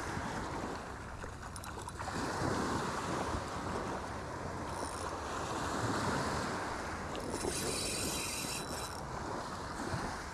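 Small surf breaking and washing up the beach, with wind buffeting the microphone. A brief higher whir comes in about seven seconds in.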